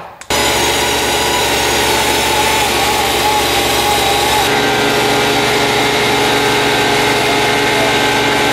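A small motor-driven machine running steadily, starting abruptly just after the start; its hum changes slightly about four seconds in.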